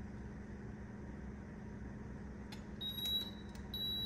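Cuisinart vertical waffle maker's ready alert: two short high beeps about a second apart, starting near the end, as its green light comes on to signal the waffle is done, over a faint steady hum.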